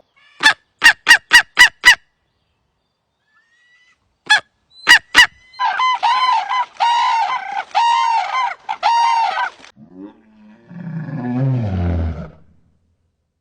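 Steller's sea eagle giving a rapid series of six sharp yelping calls, then three more about four seconds in. Red-crowned cranes follow with repeated honking trumpet calls, and near the end comes a low, falling growl of a Eurasian brown bear.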